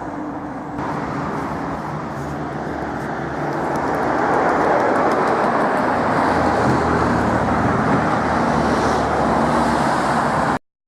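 A car's engine and road noise, growing louder about four seconds in and holding, then cutting off suddenly near the end.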